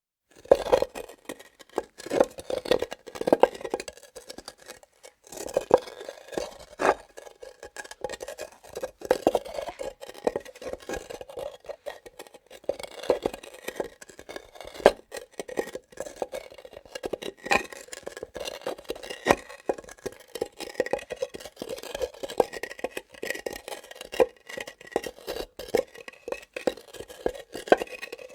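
Hard objects being scraped, dragged and knocked on granite: an irregular run of sharp knocks mixed with short grating scrapes, with a few brief pauses.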